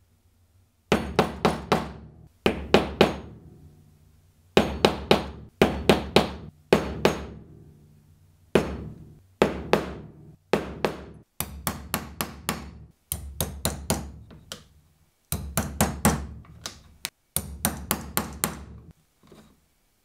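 Mallet striking a metal basket-weave stamp, tapping a basket-weave pattern into a leather strap: quick runs of three to five sharp strikes, about four a second, in short groups with brief pauses between.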